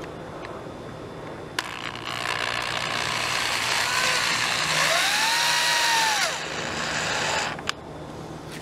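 Electric drill driving a screw through a steel plant hook's mounting plate into a treated wooden post. A click about a second and a half in, then about six seconds of the motor running as the screw bites into the wood, its whine rising and falling in pitch near the middle before it stops with another click.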